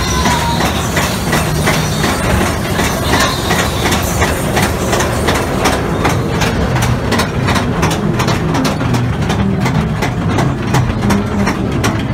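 Mine-train ride cars rolling along their track, with a steady rumble and a low hum, and wheels clattering and clicking over the rails. The clicks come faster and thicker about halfway through.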